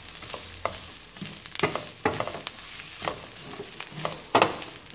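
Chips and chopped vegetables sizzling in a frying pan over high heat as they are stirred, with scattered clicks and scrapes of a spatula against the pan.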